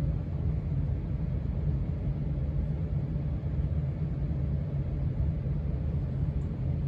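1993 Casablanca Stealth ceiling fan running, a steady low rumble.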